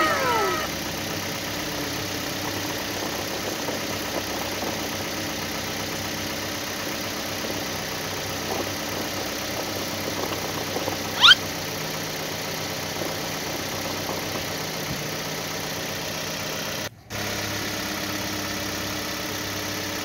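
Steady, even engine-like running hum as the cardboard toy truck drives. About eleven seconds in there is one short, sharp rising chirp, and near the end the sound drops out for a moment.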